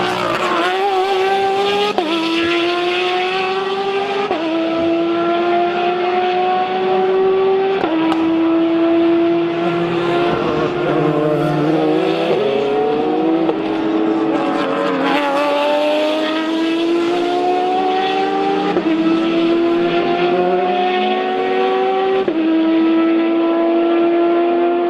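GTE-class race car engine at full throttle, its pitch climbing steadily through each gear and dropping sharply at each upshift, several upshifts a few seconds apart.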